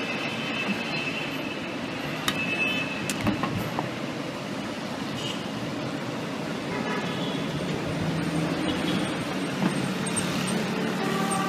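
Steady street noise with road traffic going by, and a few sharp clicks from the cooking at a street-stall griddle about two to four seconds in.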